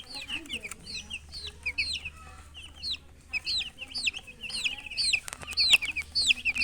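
Several chicks peeping: a steady stream of high, downward-sliding chirps, several a second and overlapping, growing louder toward the end. A few sharp clicks sound about five and a half seconds in.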